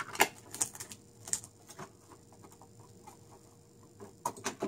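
Hands handling the plastic body of a Sony HW45ES projector still wrapped in its protective film: scattered clicks, taps and crinkles, heaviest in the first two seconds and again in a quick cluster near the end as the unit is turned.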